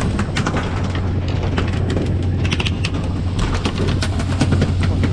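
Fishing boat engine running with a steady low hum under the hiss of water spray along the hull, with many short clicks and knocks scattered through it.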